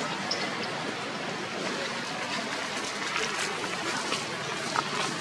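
Steady rushing outdoor background noise with a few faint ticks and clicks through it.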